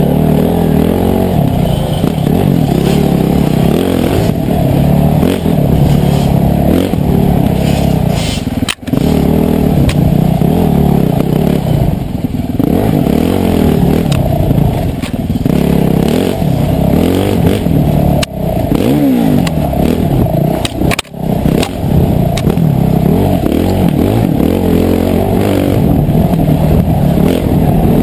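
Dirt bike engine heard from the bike being ridden, revving up and down as the throttle is worked on a bush trail. The sound drops sharply for a moment twice, about a third of the way in and again about three quarters of the way in.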